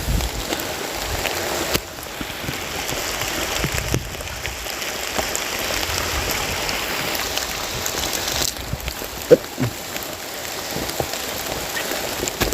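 Heavy rain falling steadily, with a sharp knock about nine seconds in.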